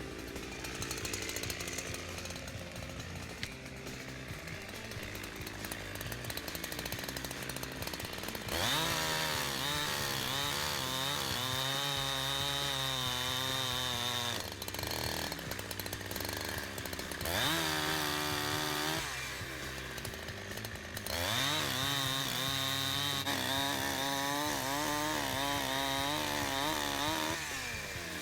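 Holzfforma G372XP two-stroke chainsaw running at low revs, then opened up to full throttle and cutting through a log, its pitch wavering as the chain loads up. It eases off and revs up twice more, the last time for a longer cut.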